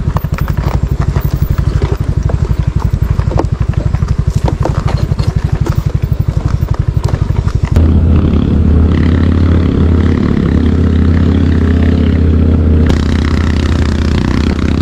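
Suzuki Skydrive Crossover 113cc single-cylinder scooter engine running while ridden over a rough dirt trail, its pulsing beat mixed with scattered clatter. About eight seconds in the sound changes abruptly to a steadier, deeper drone.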